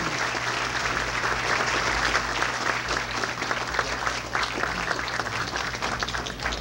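Large audience applauding: a dense, sustained ovation that thins toward the end into more separate, individual claps.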